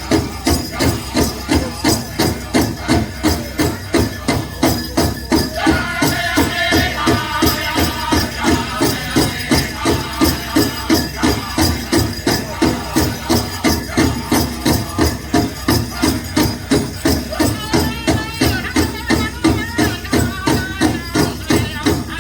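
Powwow drum group singing: several drummers strike the big drum together in a steady, even beat of about two strokes a second, under high-pitched group singing. The metal jingle cones of jingle dresses shake along with the beat.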